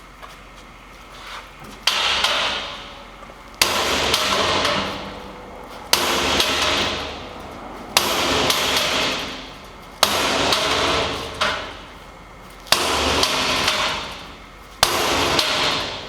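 About eight heavy sledgehammer blows, roughly one every two seconds, on a steel punch driven against a gun safe's deadbolt through a hole in the safe's 7-gauge steel side. Each strike is a sharp metallic clang that rings on and fades before the next.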